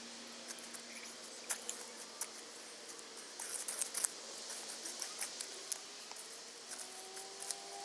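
Irregular sharp clicks and crackles over a faint hiss, with a faint steady hum that fades about five seconds in and faint rising tones near the end.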